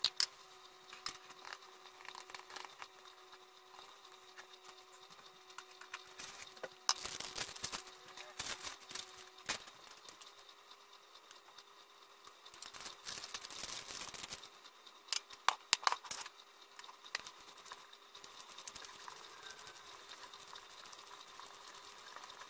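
Kitchen handling sounds from mixing cookie dough in a glass bowl: spice jars shaken and tapped, clicks and scrapes as cocoa and spices go in, and dough worked by hand. A faint steady hum sits under it all.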